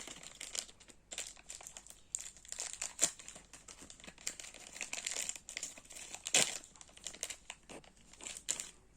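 Plastic packaging crinkling as a Sweet Box candy-and-figure pack is handled and opened, in irregular crackles, loudest about three seconds in and again a little past six seconds.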